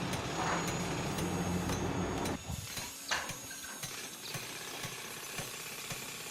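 An engine running steadily, which stops abruptly about two and a half seconds in, leaving a quieter background with scattered faint clicks.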